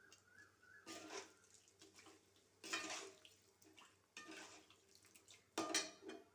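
Watery quail gravy sloshing in a pan as it is stirred after chili powder has gone in, in four short splashy bursts with the loudest near the end.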